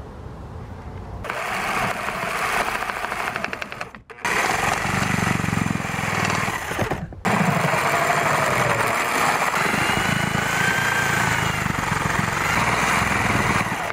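Skil 4.5-amp corded jigsaw sawing through pine boards, its blade stroking rapidly. The sawing starts about a second in and breaks off abruptly twice, briefly each time.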